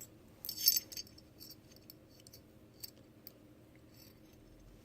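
Light metallic clicks and a short scrape as a firing pin is slid into the back of a Lantac enhanced AR-15 bolt carrier group. The loudest scrape comes about half a second in, followed by a few faint ticks.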